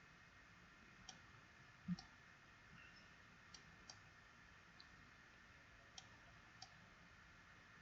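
Faint computer mouse clicks, about seven scattered at irregular intervals, over quiet room tone.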